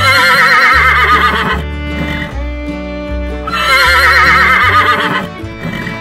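Horse whinnying twice, each call about a second and a half long, wavering and falling in pitch. Background music with a steady bass line plays under both calls.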